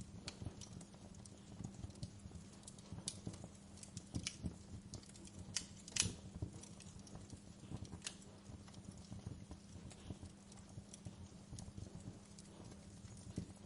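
Wood fire in a fireplace crackling: irregular sharp pops and snaps, one louder pop about six seconds in, over a steady low hum.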